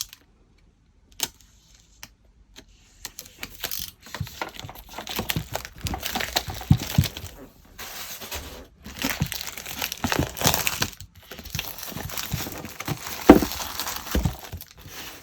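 Packaging being torn open and crinkled by hand, an irregular run of rustles and crackles that starts a few seconds in, with one sharper snap near the end.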